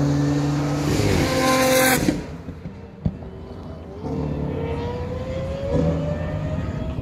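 Nissan GT-R (R35) twin-turbo V6 at full throttle, accelerating hard past and away, loud, cutting off abruptly about two seconds in. From about four seconds a fainter car engine revs with a slowly rising pitch.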